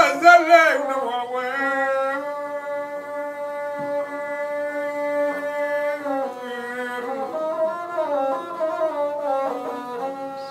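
Bedouin rababa, a single-string bowed fiddle with a skin-covered frame, playing a slow melody of long held notes that step up and down in pitch. A man's singing voice trails off about a second in.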